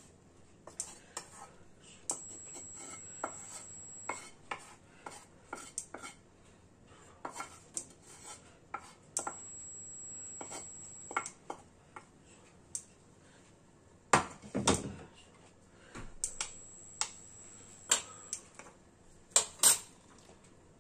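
Cookware handled at a hob: a wooden spatula knocking and scraping in a frying pan as ham filling is pushed out into a baking dish, with scattered clinks and knocks of pans and utensils. A louder clatter comes about two-thirds of the way through, and two sharp knocks near the end.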